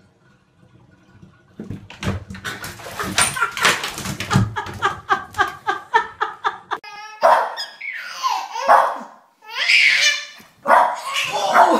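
Laughter in quick repeated bursts, then, from about seven seconds in, a Boston terrier barking while a baby laughs and squeals.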